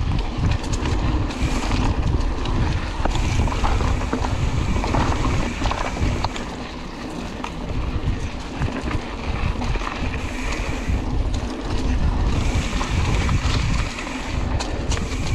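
Wind rumbling on the microphone of a mountain bike ride along a dirt cross-country trail, with scattered clicks and knocks from the bike over the rough ground. The level dips briefly about seven seconds in and again near the end.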